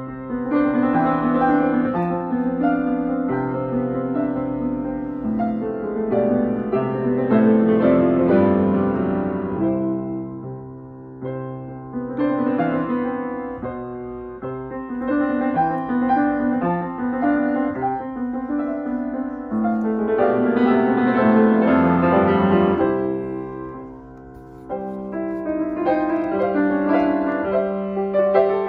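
Steinway & Sons grand piano being played, a piece of sustained chords and melody. It swells louder twice, about a third of the way in and again past two-thirds, with a brief quiet dip after the second swell.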